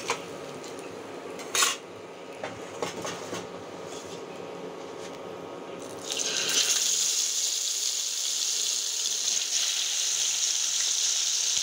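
Utensil clinks against a kadai, with one sharp metal clack about one and a half seconds in. About six seconds in, a loud steady sizzle starts as bata fish go into the hot oil, and it keeps up.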